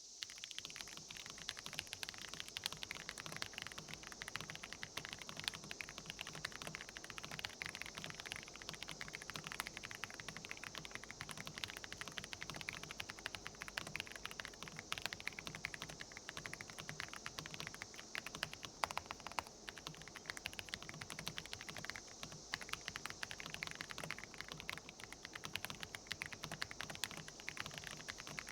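Rapid, continuous typing on an AJAZZ AK980 full-size mechanical keyboard with light linear switches: a dense run of keystroke clacks and spacebar hits, with no clanks.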